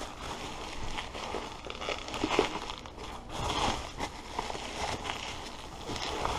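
Plastic bubble wrap being handled and pulled apart by hand, crinkling with irregular rustles and small crackles.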